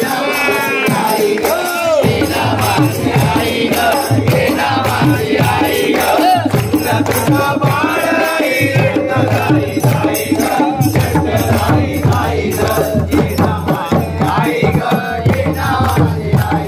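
A group of men singing a Marathi devotional bhajan together, with rhythmic clapping and a rattling hand percussion keeping the beat.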